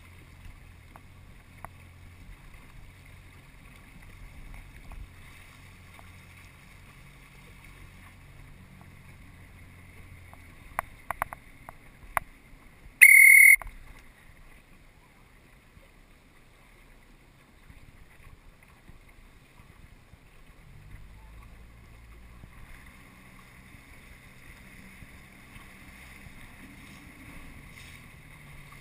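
Outboard motor of an inflatable coach boat running at low speed, easing off from about ten seconds in and picking up again around twenty seconds. About twelve seconds in there are a few sharp clicks, then a loud, short high-pitched tone lasting about half a second.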